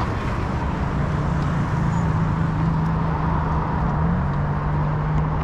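City street traffic noise with a motor vehicle's engine humming close by. The hum holds steady for a few seconds and shifts pitch slightly about four seconds in.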